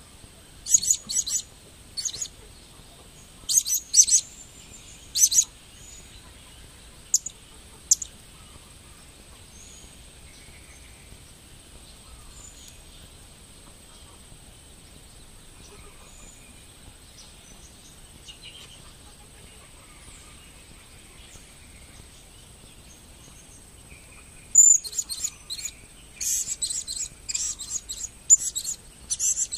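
Blue-crowned hanging parrot (serindit) chirping: short, high-pitched chirps in quick clusters through the first eight seconds, then a denser run of chirps over the last five seconds.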